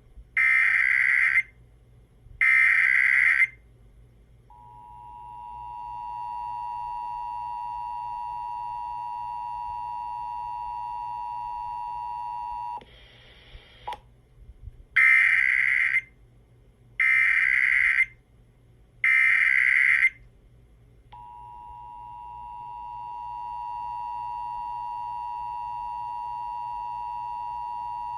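Emergency Alert System test signals. Two short screeching SAME digital data bursts are followed by the two-tone EAS attention signal (853 and 960 Hz), which fades in and holds steady for about eight seconds. A brief burst of static comes next, then three more data bursts about two seconds apart, and then the attention tone again, fading in and running on.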